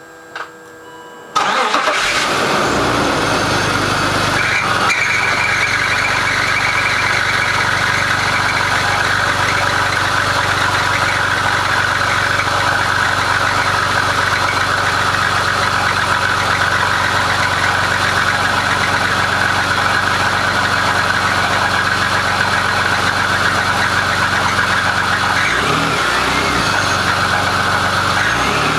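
BMW E39 525i's straight-six petrol engine comes in abruptly about a second in and then runs steadily at idle with a clattering rattle from the engine bay, which the owner stresses is not a diesel's clatter.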